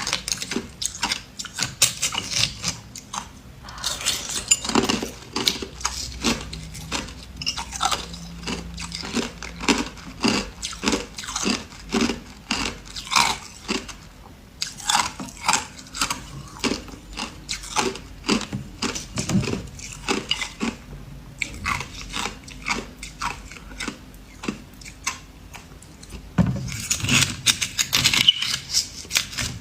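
A person biting and chewing ice, with a close, continuous run of loud crunches several times a second and denser crackling now and then.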